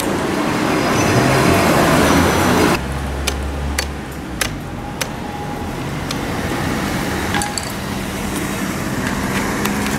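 Street traffic noise, loud for the first few seconds as a vehicle goes by, then cutting off abruptly. A quieter traffic background follows, with a handful of sharp metallic clicks and clinks, and a steady motor hum building near the end.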